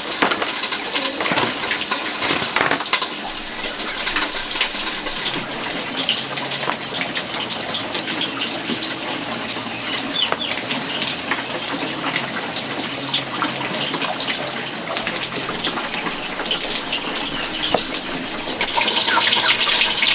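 Steady rush of running water, with small sharp clicks and snaps of a knife cutting and peeling taro stems. The rush grows brighter near the end.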